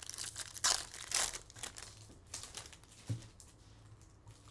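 Foil trading-card pack wrapper crinkling and tearing as it is ripped open, loudest in the first second and a half. Quieter rustling follows, with a soft knock about three seconds in.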